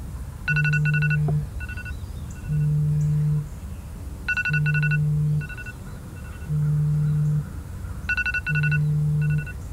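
Phone timer alarm going off: a low beep about a second long, repeating every two seconds, with a quick run of higher beeps about every four seconds, signalling that the timed challenge has run out.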